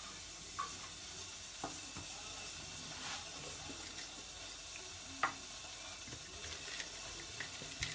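A steady hiss with a few faint light taps and clicks, about five spread through, from hands scattering ground walnuts into a metal cake pan and handling a small bowl.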